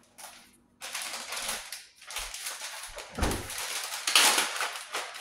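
Plastic bag of shredded cheese crinkling as it is handled and pulled open, in repeated stretches, with a dull bump about three seconds in.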